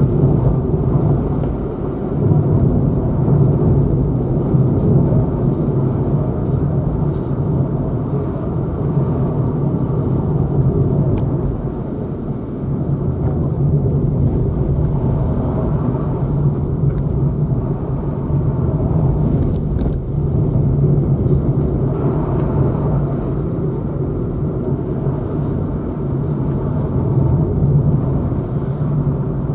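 A car being driven: steady engine and tyre road-noise drone with a low hum, rising and falling slightly with the road.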